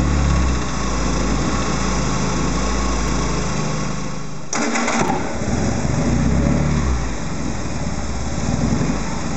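Race-prepared Ford 1172 four-cylinder sidevalve engine running steadily, with an abrupt jump about halfway. After it the engine runs less evenly, its note rising and falling.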